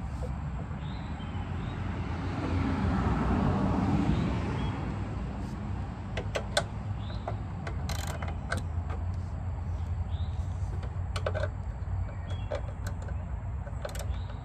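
Scattered light clicks and taps of hand work on small parts and screws, over a steady low hum, with a louder stretch of noise about two to four seconds in.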